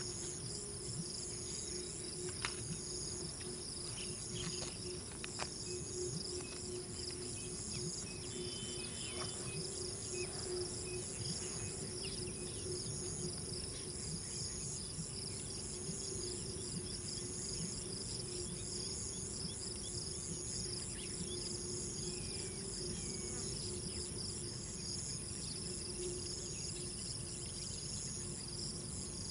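Wetland insects chirring steadily in high overlapping bands, one of them pulsing on and off at a slow, even rhythm, over a low steady hum, with a few faint short chirps about a third of the way in.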